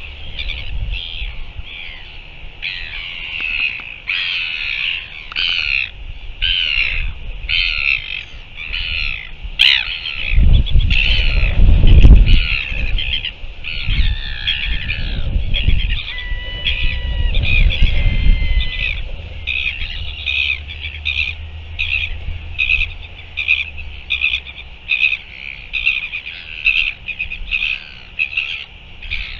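Gulls calling over and over in harsh, evenly repeated cries, about one and a half a second, with gusts of wind rumbling on the microphone in the middle.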